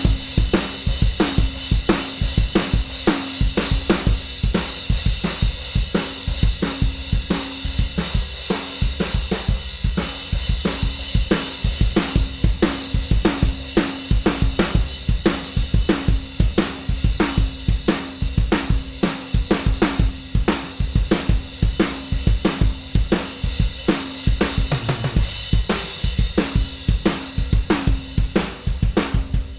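Acoustic drum kit played in a steady groove: bass drum and snare hits under a constant wash of hi-hat and cymbals. The hits on the drums are played against the cymbals to show how the player's own touch balances drums and cymbals in the mix.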